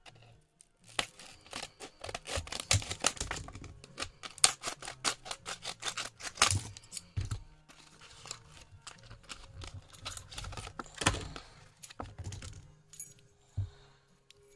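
Stiff plastic blister packaging being pulled and torn open by hand, a dense run of crackles and snaps that starts about a second in and dies away near the end.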